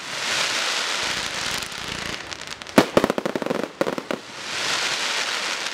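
Aerial fireworks display. Glittering bursts give a dense, crackling hiss, broken about three seconds in by a sharp bang and a rapid run of pops, then the crackling comes back.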